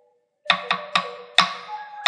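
Teponaztle (teponahuaste), a wooden slit drum, being struck: about five sharp, ringing wooden beats in an uneven rhythm, starting about half a second in.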